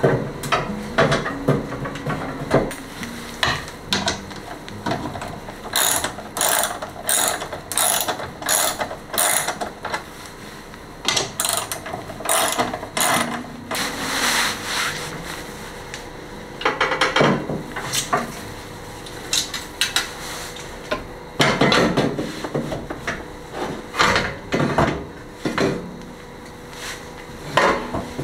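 Hand ratchet wrench clicking in several runs with pauses between them, as the mounting bolts of a newly fitted exhaust muffler are done up.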